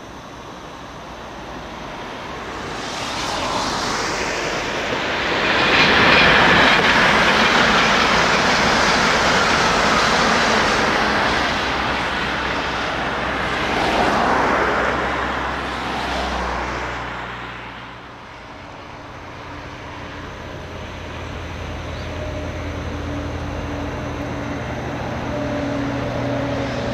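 Shinkansen bullet trains passing at high speed: a rush of air and wheel noise swells over the first few seconds, stays loud for about ten seconds and dies away. Then an N700-series Shinkansen approaches, its rush growing steadily with a low hum under it.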